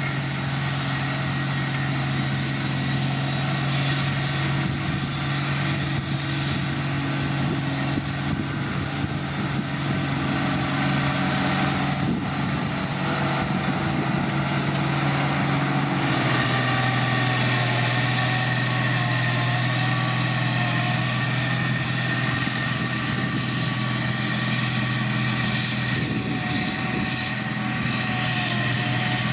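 Heavy diesel road-construction machine engine running steadily under load. Its pitch drops slightly about halfway through, and a faint wavering whine runs over it in the second half.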